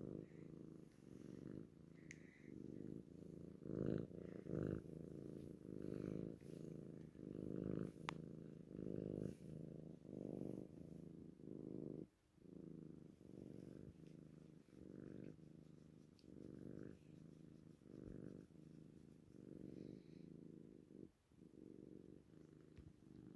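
A kitten purring close up: a steady low purr that swells and fades about one and a half times a second with its breathing, with a short pause about halfway through.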